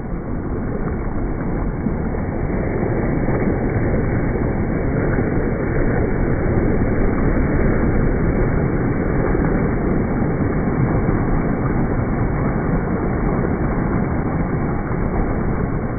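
Steady rushing of wind and choppy water heard from a boat out on a lake, with no speech or music over it.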